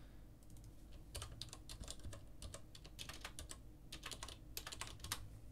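Typing on a computer keyboard: a run of quick, quiet keystrokes in short clusters with brief pauses.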